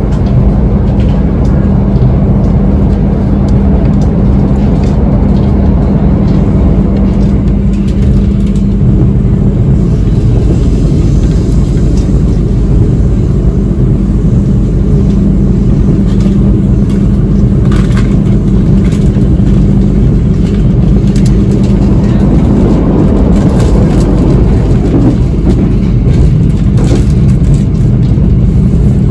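Mutiara Selatan passenger train running, heard from on board: a loud, steady rumble with a constant low drone.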